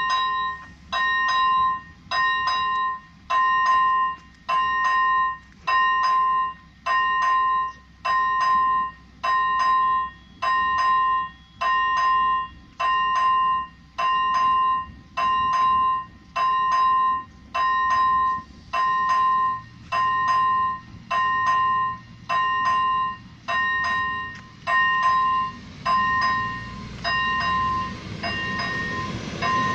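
Electronic warning bell of an AŽD 97 level crossing ringing in even strokes about once a second, signalling that the crossing is closed. Near the end the rising noise of an approaching Class 814 diesel railcar builds beneath it.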